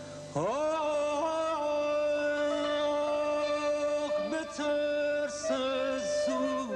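Persian classical chamber music: a single melodic line slides up about half a second in, holds a long sustained note, then breaks into quick ornamental dips and turns near the end.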